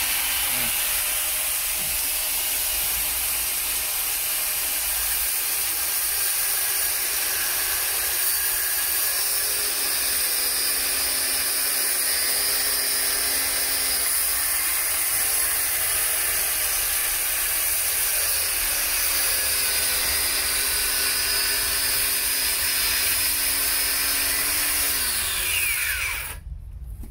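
Angle grinder with a thin 0.4 mm, 100 mm cutting blade, mounted on a grout-cutting guide, running at full speed while it is pushed along a joint between floor tiles. Its motor note wavers slightly as the blade cuts. Near the end it is switched off and winds down with a falling whine.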